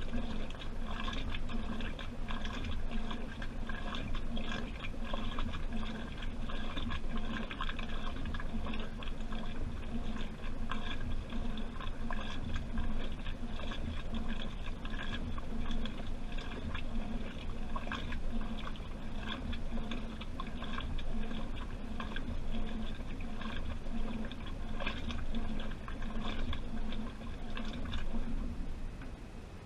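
Washing machine in its wash cycle: water sloshing and splashing in the turning drum, over a steady hum.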